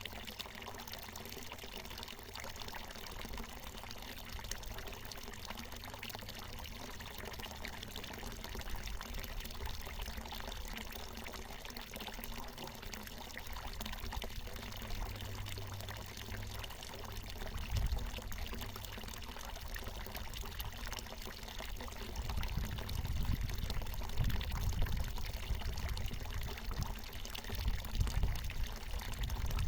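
Water from a natural mountain spring pouring and splashing in a steady stream. Bouts of low rumble come in during the last third.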